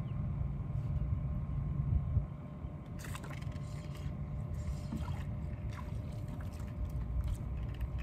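Steady low rumble of wind and water around a small boat, with a few faint clicks and rattles from the spinning rod and reel as a mangrove snapper is reeled in.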